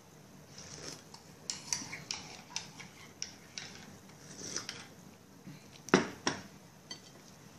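Scattered light clicks and taps of eating at the table, handling food and tableware, with a sharper click about six seconds in.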